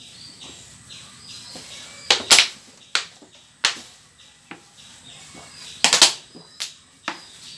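Thin plastic water bottle crackling as water is drunk from it, about ten sharp irregular cracks as the bottle wall buckles and pops back.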